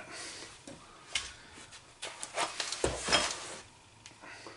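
Rustling and light knocks of packing material and cardboard being handled while a box is unpacked, with a low thump about three seconds in.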